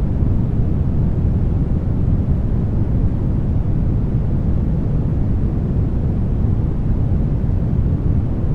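Brown noise: a steady, deep rumbling hiss, strongest in the low end, unchanging in level.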